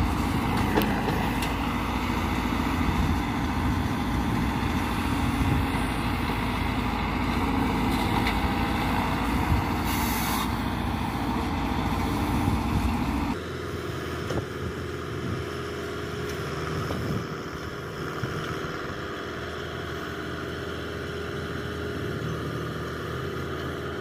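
Mahindra Novo 605 tractor's diesel engine running under load as its Bull backhoe loader digs and loads soil. A brief hiss about ten seconds in, and a little past halfway the sound drops abruptly to a quieter engine note.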